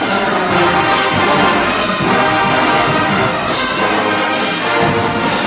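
Marching band brass section playing a loud, full chord-heavy passage, with a percussion stroke about once a second.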